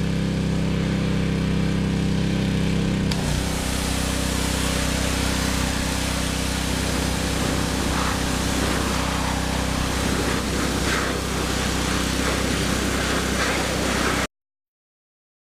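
Gas pressure washer's small engine running steadily. About three seconds in, the spray starts: a loud hiss of high-pressure water joins the engine, which settles under load. The sound cuts off suddenly near the end.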